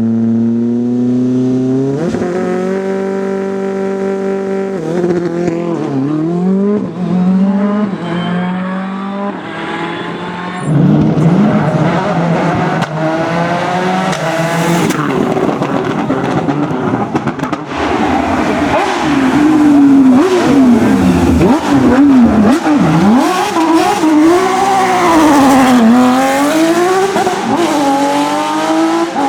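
Rally cars driven hard on a stage one after another, engines revving high and dropping sharply through gearshifts and downshifts, with tyre noise. A louder car comes in about a third of the way through, and its engine pitch swings up and down rapidly through the second half.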